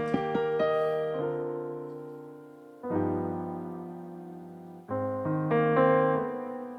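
Piano playing slow chords, each struck and left to ring and fade, with new chords about a second in, near three seconds and near five seconds.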